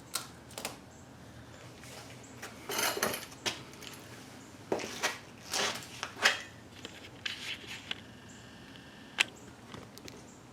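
Scattered clicks, knocks and scrapes of tools and parts being handled by hand, with no saw running.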